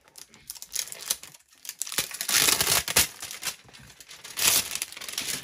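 Plastic and cardboard packaging of a Cloudees toy box crinkling and tearing as it is opened by hand, in irregular bursts, loudest about two to three seconds in and again shortly before the end.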